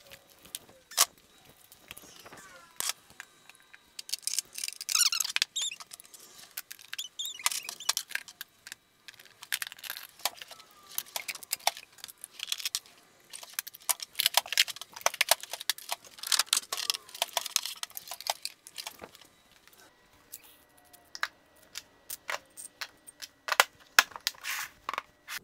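Metal hand tools and sockets clinking and clattering as they are put away in a rolling tool chest, with many short sharp clicks and knocks throughout. Footsteps on a concrete floor join in near the start.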